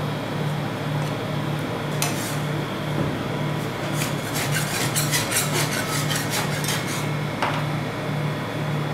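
Metal spatula scraping and tapping on the steel cold plate of a rolled-ice-cream pan as it presses into and chops cake into poured cream, with a quick run of clicks and scrapes about halfway through. A steady low hum pulsing about twice a second runs under it.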